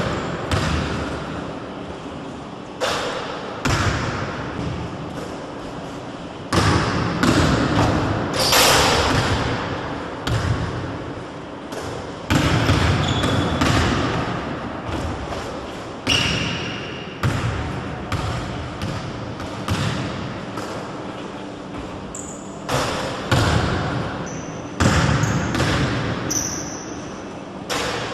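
A basketball bouncing on a hardwood gym floor: irregular sharp thuds every second or two, each ringing on in a long echo through the large hall.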